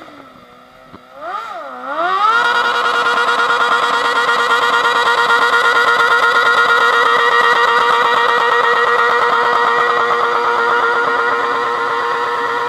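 Modified John Deere lawn tractor engine giving a couple of short revs, then about two seconds in climbing to a high, steady pitch. It holds flat out under load as the tractor drags a weighted pulling sled, and eases off slightly in level near the end.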